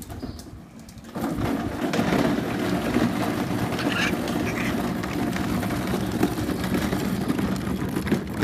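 Hard plastic wheels of a toddler push car rolling over rough concrete, a steady rumbling that starts about a second in as the car is pushed along.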